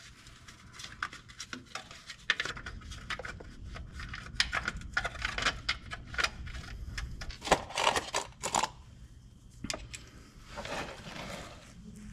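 Irregular clicks and clinks of hand tools and a metal heat shield being handled and bolted onto a pickup's starter, with a sharper knock about halfway through.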